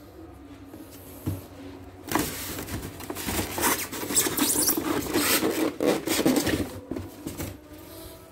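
Styrofoam packing squeaking and rubbing as a portable embroidery machine is worked out of its foam insert. It runs in dense, scratchy bursts from about two seconds in until near the end, after a few light knocks.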